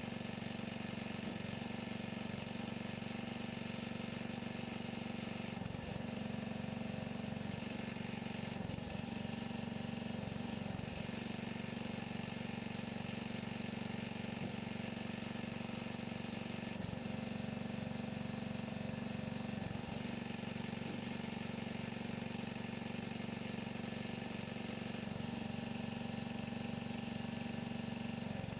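Small engine on a homemade hydraulic log splitter running steadily, its note dipping briefly every few seconds as the splitter is worked.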